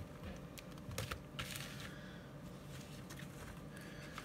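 Stiff paper card blanks and envelopes being handled and laid down on a cutting mat: a few light taps and clicks, with a brief rustle of paper about a second and a half in.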